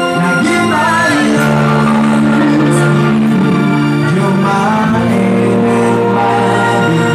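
Live rock band playing an amplified song: electric guitars and a drum kit under a sung vocal, with long held chords.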